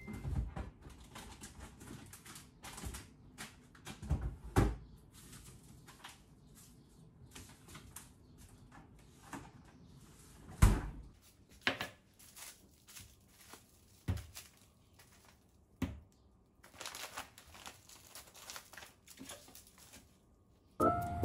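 Kitchen handling sounds: scattered knocks and clicks as a refrigerator is opened and food containers are taken out and set on the counter, the loudest knock about halfway through, then plastic bags and cling film rustling near the end.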